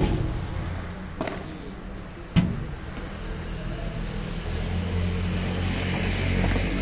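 Three sharp pops of a padel ball struck by paddles in a rally, a little over a second apart, the loudest about two and a half seconds in. Under and after them, the low steady hum of a car engine that grows louder toward the end.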